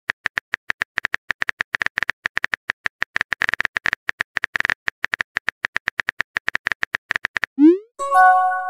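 Simulated phone keyboard typing sounds: a rapid run of key clicks, several a second with short pauses, as a text message is typed. Near the end comes a short rising whoosh as the message is sent, then a chime of several tones that rings out as the message bubble appears.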